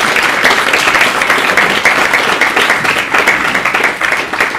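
An audience applauding: a dense, steady patter of many hands clapping.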